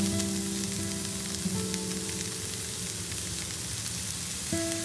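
Diced onion and carrot sizzling steadily in a frying pan as diced mushrooms are tipped in, with soft background music of held notes playing along.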